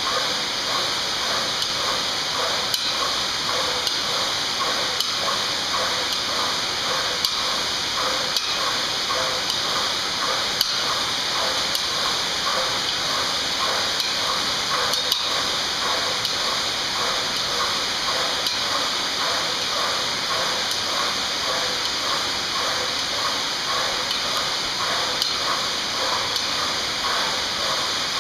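SpeedStroke GYM kayak ergometer flywheel spinning under hard sprint paddling: a steady whooshing hiss that surges in a regular rhythm, about two pulls a second.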